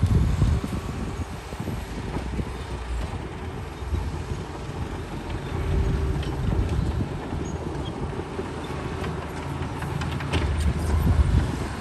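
Heavy diesel earthmoving machinery running: a steady low rumble with continuous rattling and clanking, a little louder near the end.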